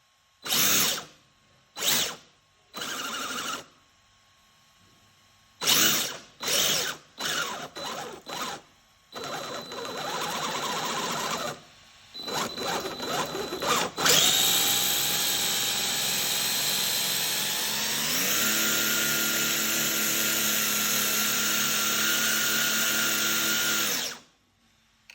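Homemade RC car's small electric motor whirring in a series of short throttle bursts, then running steadily for about ten seconds. Partway through the steady run its whine steps up in pitch, and then it cuts off suddenly.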